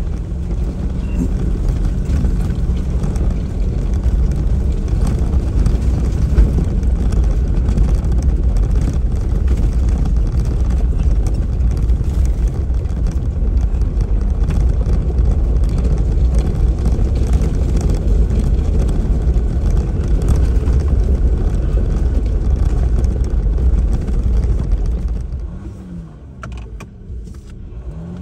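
Off-road vehicle driving on a rough dirt trail: a steady low rumble of engine and tyres with a rough, rattly texture. It eases off sharply about 25 seconds in.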